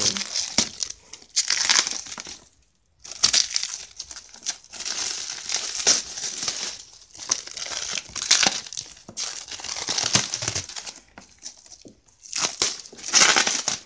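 See-through packaging and sticky tape crinkling, crumpling and tearing in irregular bursts as a taped-up parcel is pulled open by hand, with a brief pause about two and a half seconds in.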